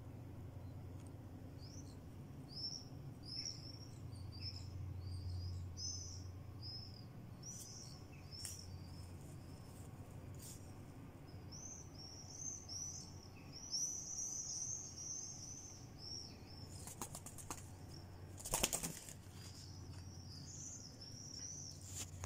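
A swift fledgling beats its wings in quick strokes for about two seconds near the end, the loudest sound here. Behind it, swifts flying outside give short, high calls over and over.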